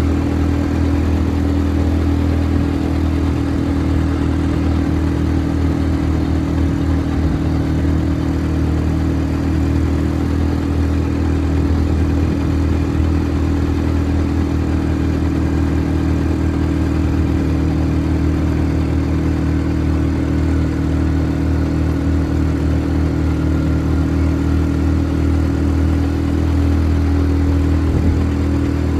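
ATV engine running at a steady speed, its pitch and loudness holding constant throughout.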